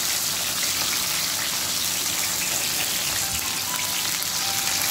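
Onion and tomato slices sizzling steadily in hot oil in a frying pan.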